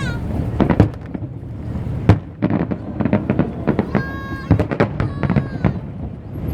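Fireworks bursting in an irregular series of sharp bangs and crackles, the loudest about two seconds in.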